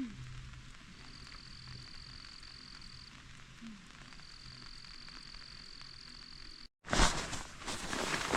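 An insect trilling outdoors: a thin, steady, high-pitched trill held for about two seconds at a time with short pauses in between. About 6.7 s in, the sound cuts out abruptly and loud rustling noise follows.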